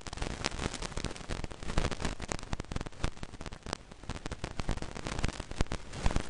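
Crackling static on the recording: a dense run of irregular clicks and pops over a steady hiss.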